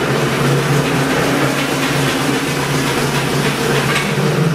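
Tram bogie's electric traction motors driving its wheels on a display stand: a loud, steady whir with a low hum.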